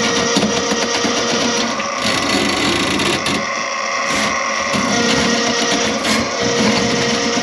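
Electric drain-cleaning machine running, its motor and spinning cable working in the drain line to clear a clogged kitchen sink drain, with a steady whine that drops out and returns a few times.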